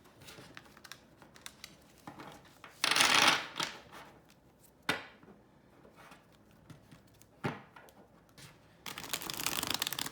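Deck of laminated tarot cards being shuffled by hand: two bursts of riffling several seconds apart, with a couple of sharp card snaps and light ticks of the cards in between.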